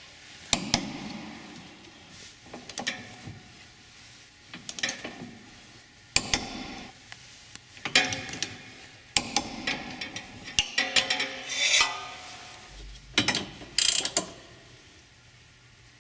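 Hand ratchet and torque wrench tightening the tow hitch's chassis bolts: irregular bursts of ratcheting clicks and clinks of the steel tools on the bolts and hitch.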